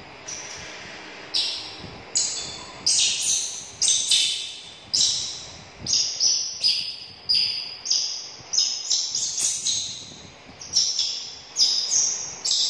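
Baby macaque squealing over and over in short, high-pitched cries, about one or two a second, each sharply begun and trailing off in the bare tiled room; upset, left on its own without its mother.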